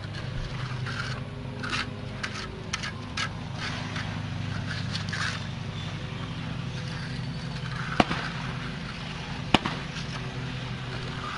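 Hand tool scraping across wet concrete in a series of short strokes as the slab is worked level, over a steady engine hum. Two sharp clicks come later on.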